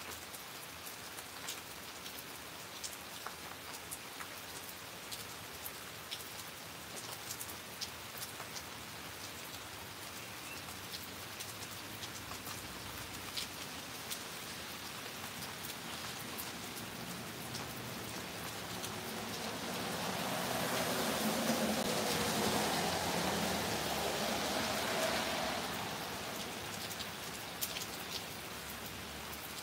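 Steady rain falling, with scattered close raindrops ticking. The hiss swells louder for several seconds about two-thirds of the way in, then eases back.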